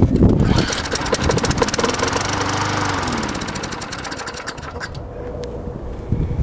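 Craftsman Eager 1 push mower's small single-cylinder engine running with a rapid, even firing beat, fading toward the end.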